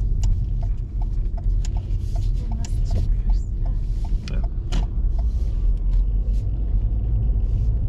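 Car turn-signal indicator ticking evenly, about three ticks a second, over the steady low rumble of the engine and tyres inside the cabin. The ticking stops about five seconds in, as the left turn is completed and the indicator cancels.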